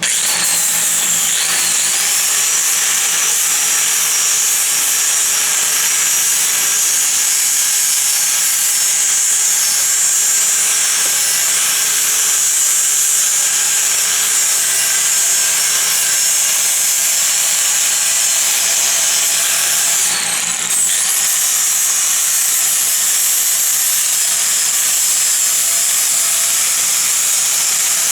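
Power grinder running steadily against metal, grinding the area down to clean it for a good weld. It briefly eases off about twenty seconds in, then picks back up.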